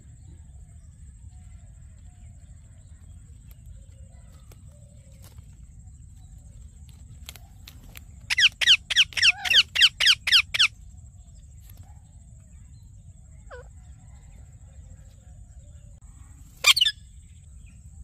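Indian ringneck parrot screeching: a rapid run of about ten sharp calls, each falling in pitch, lasting a couple of seconds about halfway through, then one more loud call near the end. Under it a low rumble and a faint steady high tone run throughout.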